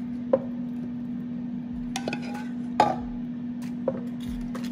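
Wooden spoon clinking and knocking against a saucepan and a metal baking pan while sauce is spooned over chicken wings: a handful of short knocks, the loudest about three seconds in. A steady low hum runs underneath.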